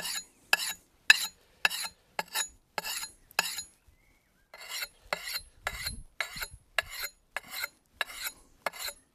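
Axe blade being sharpened by hand with a dry sharpening stone: quick rasping strokes along the steel edge, about two a second, with a short pause about four seconds in.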